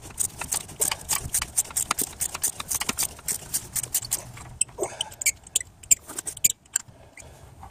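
Ratchet wrench clicking in quick runs as it is swung back and forth, unscrewing a spark plug from a V6 cylinder head after the plug's corrosion-tight grip has been broken. The clicking is fast and steady for about four seconds, then turns into scattered single clicks.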